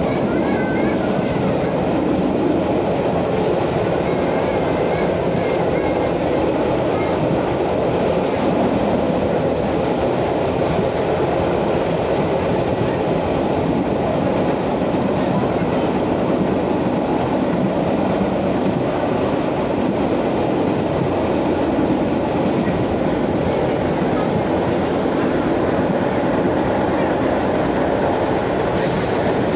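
Vintage R33/R38 subway cars running at speed on elevated track, heard from inside the car: a steady rumble of steel wheels on rail with clickety-clack over the rail joints.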